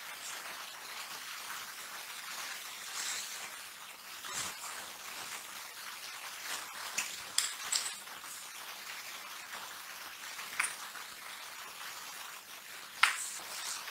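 Low hiss with a few small, sharp clicks and taps scattered through it, the loudest near the end: plastic being handled, a toy doll set on a clear plastic disc and a tube of glitter glue squeezed over it.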